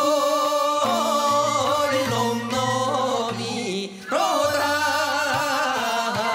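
Male folk singer singing a Korean minyo (folk song) in the traditional sorikkun style, his voice bending and wavering in pitch, over instrumental accompaniment. He takes a short breath between phrases about four seconds in.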